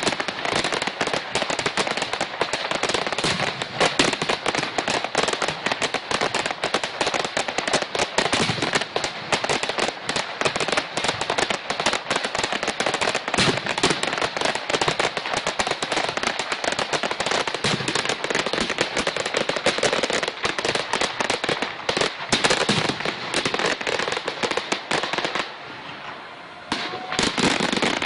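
Fireworks finale: a dense, continuous barrage of rapid bangs and crackling shells. It eases into a brief lull near the end, then picks up again.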